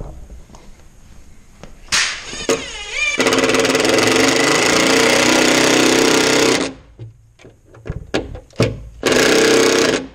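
Cordless impact driver driving screws into a plywood floor. A couple of short trigger bursts, then a long run of rapid hammering lasting about three and a half seconds, and another burst of about a second near the end, as the screw is driven down to seat fully.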